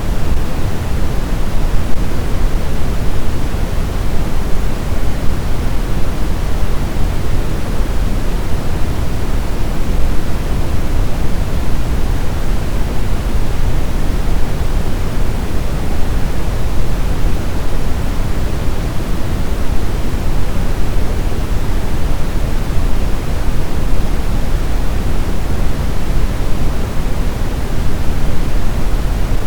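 Steady, unbroken pink-style noise, heaviest in the bass and thinning toward the treble, played as a sleep sound for soothing a crying baby.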